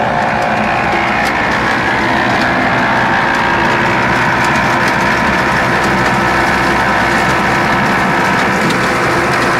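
New Holland T7200 tractor driving a rock crusher through stony ground: the engine running steadily under load together with the crusher's working noise, with a scatter of faint sharp ticks throughout.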